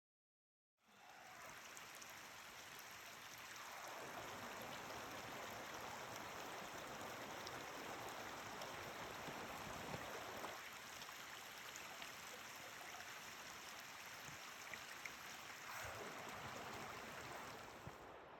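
Steady rushing water of a mountain stream, cutting in abruptly just under a second in.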